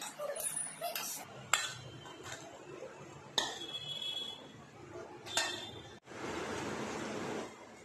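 A metal spatula clinking sharply against a steel bowl and an iron kadai a few times. Near the end comes a steady sizzle of about a second and a half as rice-flour dough fries in hot oil.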